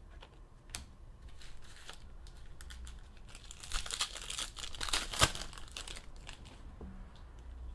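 Crinkling and rustling of plastic and foil trading-card packaging being handled, with some tearing and a few sharp clicks, loudest about four to five seconds in.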